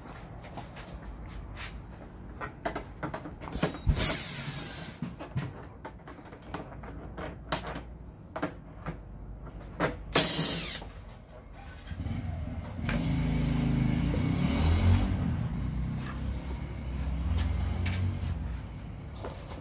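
Cordless drill-driver running in short bursts as screws are backed out of a scooter's plastic front cowl, with clicks and knocks of the plastic panels being handled. About 12 s in, a louder, steadier low sound starts and runs most of the rest of the way.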